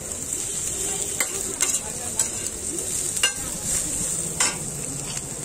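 Beef tripe sizzling on a large flat metal griddle while a metal spatula scrapes and knocks against the griddle, turning the pieces. The sizzle is a steady hiss, broken by several sharp clacks at irregular intervals.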